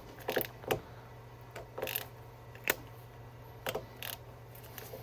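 Ratchet wrench clicking in short, irregular strokes, turning a bolt extractor to back out a stripped, rusty bolt that has just broken free. A steady low hum sits underneath.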